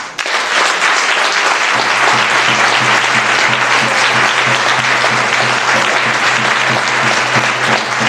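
Audience applauding steadily in a hall.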